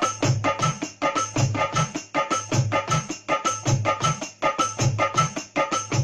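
Roland SPD-SX sampling pad struck with drumsticks, sounding a fast, even pattern of sampled drum and percussion hits, about five a second, over a low bass pulse.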